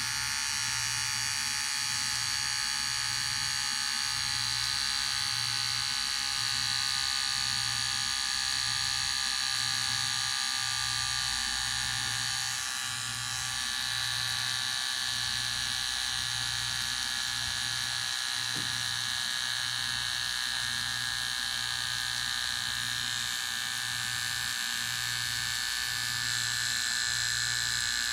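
Electric hair clipper running steadily: a constant buzzing whine with a low hum that wavers about once a second.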